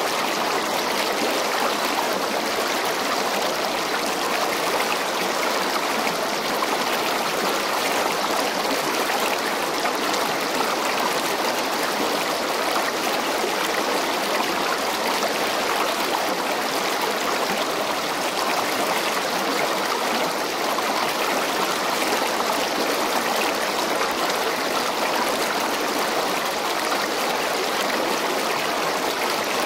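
Steady rushing of river water, an even hiss that holds without a break.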